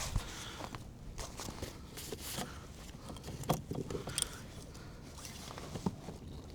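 Scattered light knocks, clicks and rustles of gear being handled in a kayak, about eight irregular taps over a faint steady background.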